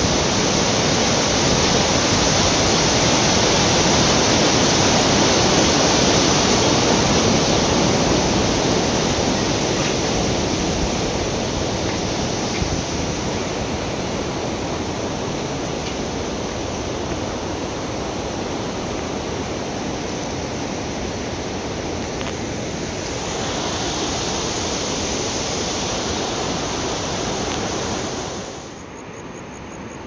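Steady roar of a rushing mountain river over rocks, heard from close by. It eases a little partway through and drops abruptly to a quieter rush near the end.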